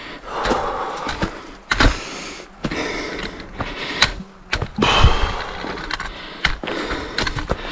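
A runner's heavy breathing, long noisy breaths every second or two, with sharp clicks of footsteps on the trail while climbing a long, steep hill.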